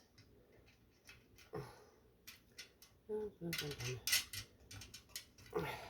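Small metal hardware (washers, screws and nuts) clinking and tapping as it is handled and fitted to a fruit-press frame: a few sharp clinks spread through, with a brief low murmur of voice about halfway.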